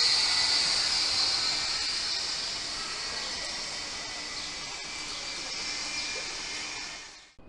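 An electric multiple unit, an SBB RABe 523 Stadler FLIRT, pulling away along the platform: a steady high hiss and running noise that fades as it recedes, then cuts off abruptly near the end.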